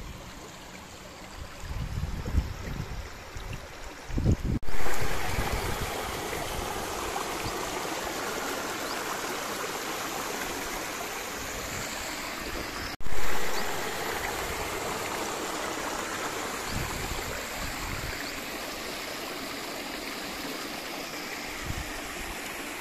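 Shallow rocky stream running over boulders and small cascades: steady rushing and trickling water, with low rumbles in the first few seconds. The water sound jumps suddenly louder about four and a half seconds in and again about thirteen seconds in.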